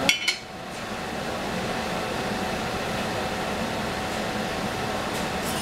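A metal whisk clinks once against a stainless-steel saucepan, ringing briefly. Steady whooshing background noise follows.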